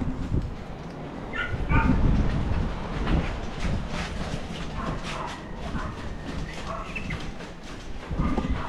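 A dog barking a few short times, over low bumps and knocks of things being handled and moved.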